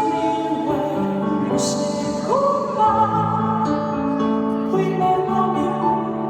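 Live popera performance: sustained instrumental accompaniment, with a singer's high voice entering about two seconds in, sliding up into a long held note.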